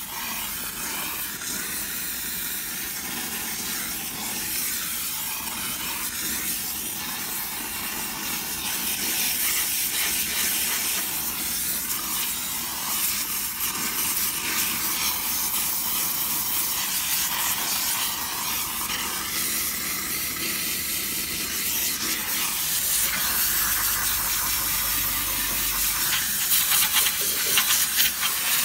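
Chief Steamer 125 steam cleaner jetting steam from its hand wand into a car's wheel well, blowing out loose grit and dirt: a steady hiss, slightly stronger after about eight seconds.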